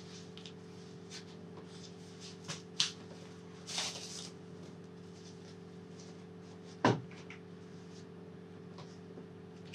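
Plastic packing sheet rustling and crinkling in short bursts as it is handled and pulled off a vacuum-packed life raft, with one sharp knock about seven seconds in. A steady low hum runs underneath.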